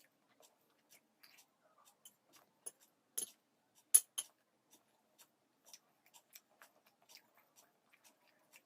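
Eating sounds: scattered small clicks and smacks of someone chewing and eating poha, with two sharper, louder clicks about three and four seconds in.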